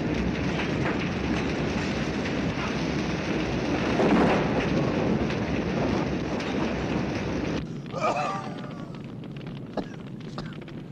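Steady roar and crackle of a large building fire, swelling about four seconds in, then cut off abruptly after about seven and a half seconds. A quieter stretch follows, with a short vocal sound and scattered crackles.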